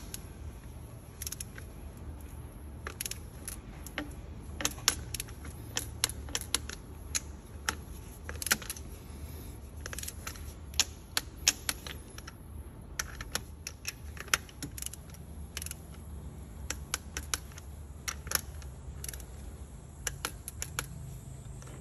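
Click-type torque wrench ratcheting in short runs of sharp clicks on the cylinder head bolts, bringing them to 25 N·m on the first tightening pass.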